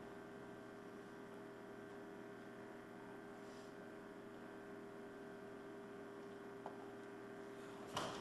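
Steady electrical mains hum over faint room tone, with no music or voices. A single small click comes about two-thirds of the way through, and a brief, louder noisy burst near the end.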